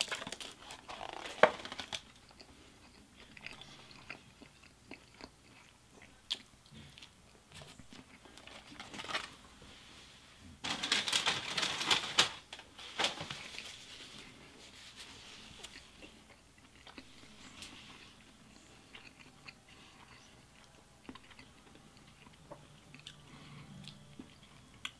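Close-miked eating sounds: chewing and crunching on fast food. Near the start comes a loud rustle of paper as fries are shaken out of their paper carton, and about eleven seconds in a second, longer burst of handling noise.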